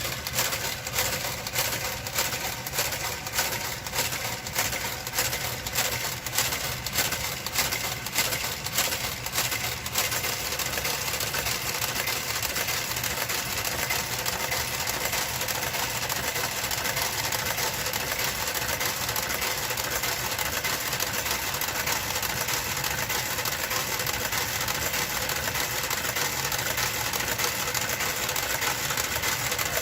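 Knitting machine's motorized garter carriage working its way along the needle bed knitting purl rows: a regular quick clicking for about the first ten seconds, then a steady mechanical whir with a constant hum.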